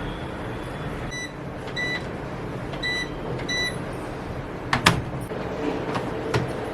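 Washing machine control panel giving four short, high button beeps as settings are chosen, followed about five seconds in by a sharp knock and then two lighter knocks.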